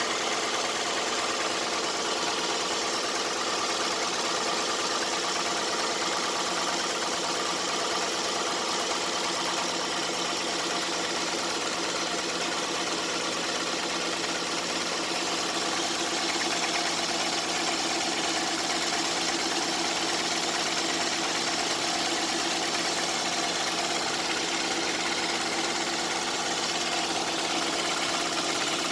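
Toyota 1AZ-FE 2.0-litre inline-four engine running steadily with a knock from the piston and connecting-rod group of its fourth cylinder, which the owner says has just begun after 400,000 km.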